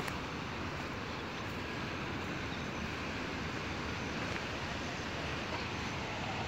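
Steady outdoor rushing noise with a low rumble and no distinct events, with a single click at the very start.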